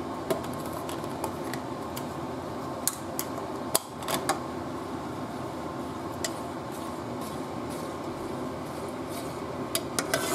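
A steady fan hum runs under a few light clicks and knocks of a plastic spoon against a nonstick pan as coconut milk is stirred, with a small cluster of knocks about three to four seconds in and a couple more near the end.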